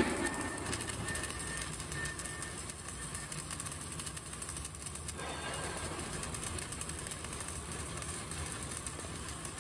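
CO2 MIG welding arc running a vertical-up (3G) weld: a steady crackling buzz, with one sharp crack right at the start.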